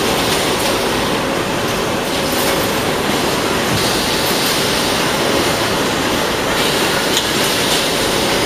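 Steady machine din of a washing-powder carton packing line running, with its conveyor belt and packing machines going continuously.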